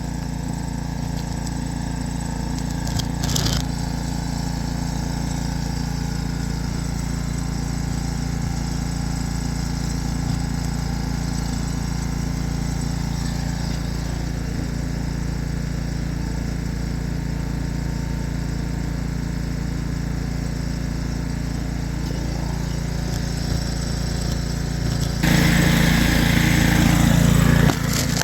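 An engine idling steadily, with a short click about three seconds in and a louder, noisy burst lasting a couple of seconds near the end.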